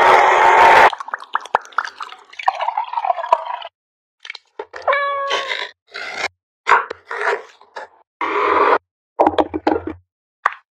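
A string of short, cut-together kitchen sounds: an electric hand-blender chopper whirring in brief bursts, with knife cuts and knocks on a wooden cutting board between them.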